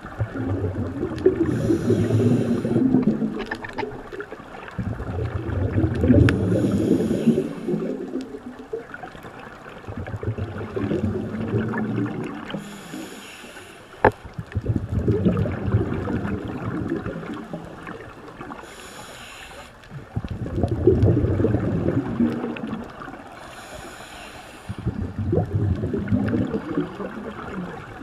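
Scuba diver breathing through a regulator underwater: a short hissing inhale and then a gurgling burst of exhaled bubbles, about every five seconds. A single sharp click about halfway through.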